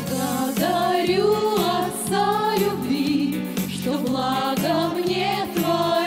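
Women's vocal ensemble singing a Christian song in harmony, several voices on sustained, gliding phrases, over instrumental accompaniment with a steady, regular bass pulse.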